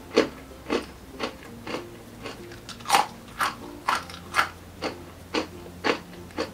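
Mouth chewing hard kettle-cooked waffle potato chips, with sharp crunches at about two a second.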